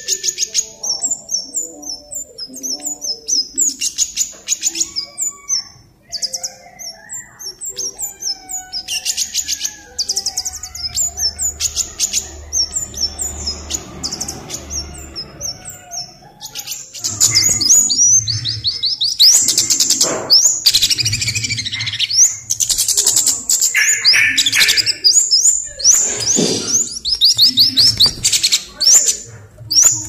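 Scarlet-headed flowerpecker calling: rapid runs of high, thin ticking notes and short chirps, growing louder and busier a little past halfway.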